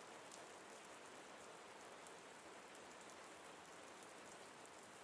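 Faint, steady rain falling, with scattered drops ticking through it.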